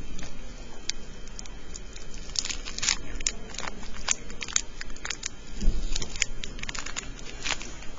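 Irregular light clicks and rustling, as of paper and small objects being handled, with a busier cluster of clicks about two and a half seconds in and a dull thump just before six seconds.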